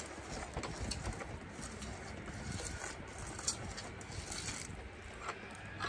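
T-handle hand auger being twisted into the ground, its blade scraping and crunching through soil in an uneven, continuous grind.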